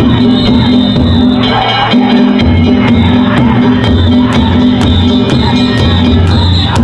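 Loud music with a steady, heavy beat, with a crowd shouting and whooping over it.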